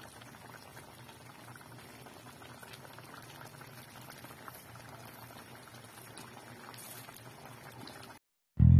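Chop suey broth bubbling gently in a stainless steel pot on the stove, a soft, steady simmer with small pops. It cuts off about eight seconds in, and loud music starts right at the end.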